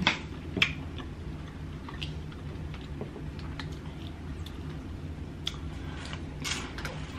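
Close-up eating sounds from a seafood boil: two sharp mouth smacks about half a second apart at the start, then faint scattered clicks as food is handled and chewed. A steady low hum runs underneath.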